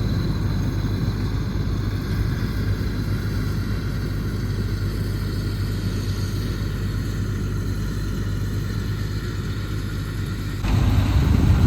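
Tractor diesel engine running steadily with a low hum. It gets louder and rougher near the end.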